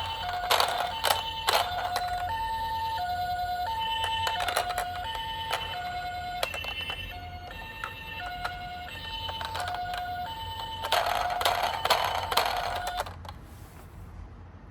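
Toy ambulance minicar's electronic siren sounding the two-tone hi-lo "pee-po" pattern, alternating between two pitches about every half second. A rattling clatter comes at the start and again near the end, and the siren stops shortly before the end.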